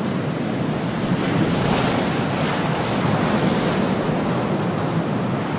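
Ocean surf washing onto a beach, with wind: a steady rush of water and air.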